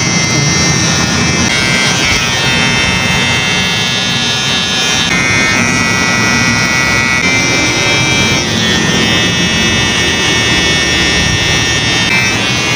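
Cordless electric hair trimmer buzzing steadily as its blade edges the hairline at the neck and around the ear.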